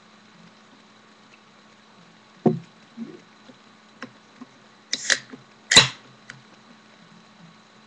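A short, low burp about two and a half seconds in, followed a couple of seconds later by two sharp knocks.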